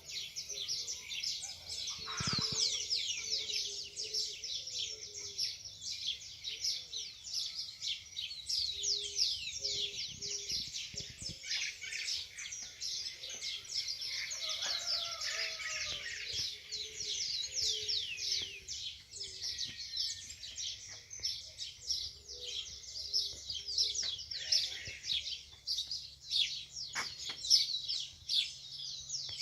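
Dawn chorus of many birds: a dense, continuous wash of quick high chirps and trills, with a short low note repeating in the background now and then.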